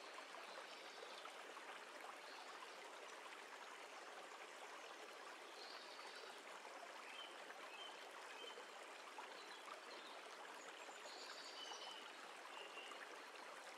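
Near silence: a faint steady hiss like running water, with a few brief faint high tones scattered through it.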